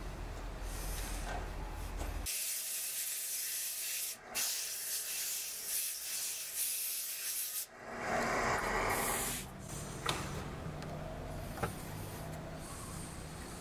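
Sandpaper hissing against a segmented wooden blank spinning on a wood lathe, with the lathe motor's low hum underneath. The hum drops away for several seconds in the middle while the hiss carries on.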